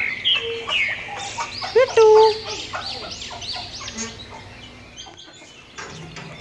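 Domestic chickens and chicks calling: a quick run of short, high peeping chirps, with one louder, upward-sliding call about two seconds in.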